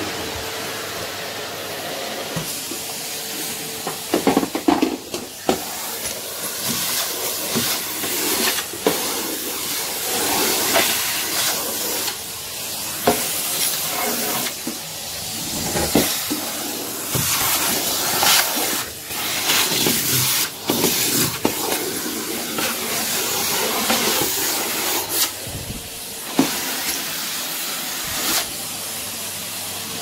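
Numatic Henry vacuum cleaner running: a steady rushing hiss over a low hum, broken by frequent sharp clicks and knocks as the nozzle works the wooden floor and picks up bits of debris.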